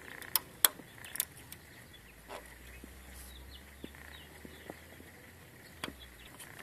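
A handful of sharp clicks and taps, the two loudest within the first second and a few fainter ones later, as fingers work the plastic wiring connector on a newly fitted alternator.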